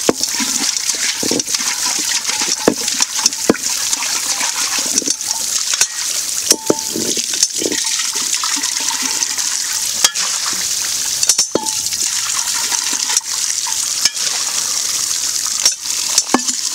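Steady stream of water pouring from a spout onto stone and splashing over hands rinsing beneath it, with scattered short knocks and clinks from a metal pot and tray.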